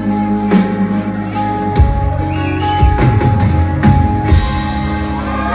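Live rock band playing without vocals: drum kit, electric and acoustic guitars and bass guitar, with heavy drum hits. The drum hits stop near the end, leaving guitar chords ringing.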